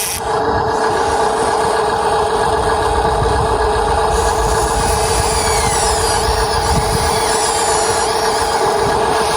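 Huina 1593 RC excavator's motors running steadily, a constant hum with a steady whine.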